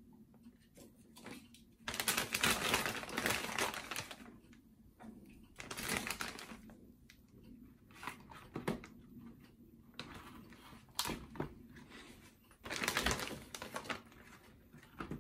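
Zip-lock plastic freezer bag rustling and crinkling, with light clicks and knocks, as frozen food portions are packed into it by hand. The handling comes in irregular bursts of a second or two, loudest a couple of seconds in, around six seconds and near the end.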